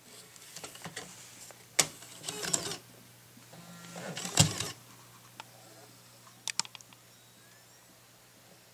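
Apple MacBook Air SuperDrive, an external slot-loading DVD drive, taking in a disc. Scraping and handling noise as the disc is pushed into the slot, then a short motor whir and a loud clunk about four and a half seconds in as the mechanism draws the disc in, and a few quick clicks about two seconds later.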